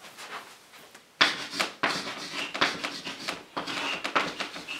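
Chalk writing on a blackboard: a quick run of scratches and taps, starting about a second in.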